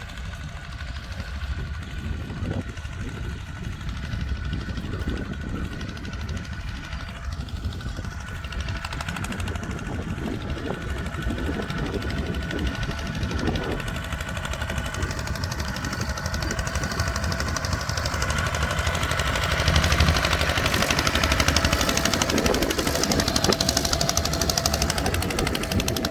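Tractor engine running hard with a fast, even knocking beat, getting louder toward the end.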